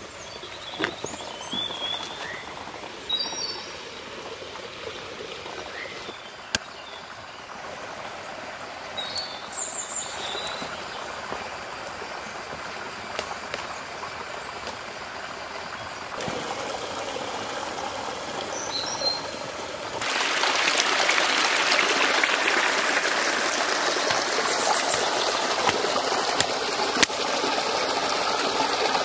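Forest ambience: birds chirping over a steady high whine, with a few sharp knocks. About twenty seconds in, a louder, even rushing sound like running water takes over.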